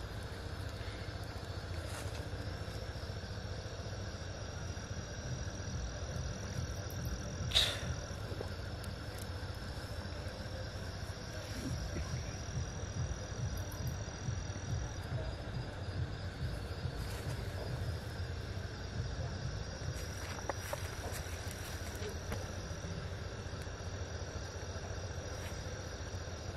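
Night insects trilling steadily in a high, thin tone over a low rumble, with one sharp click about seven and a half seconds in.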